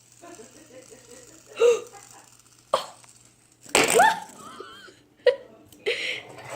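A girl's short laughs and gasps, with no words, broken by sharp knocks about three seconds and five seconds in.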